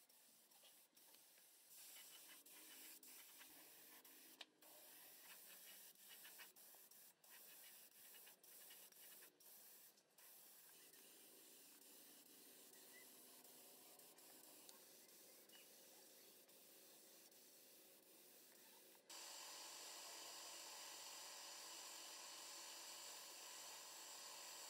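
Faint hiss of a compressed-air gravity-feed spray gun spraying paint, cutting in and out in short bursts at first, then running steadily. About three-quarters of the way through it becomes louder and steadier.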